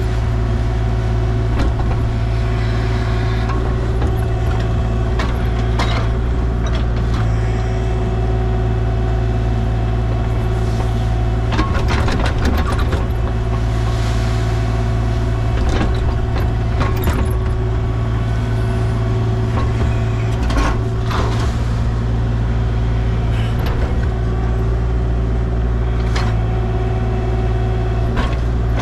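Engine of a compact excavating machine running steadily while backfilling soil into the tank hole, with scattered knocks and rattles.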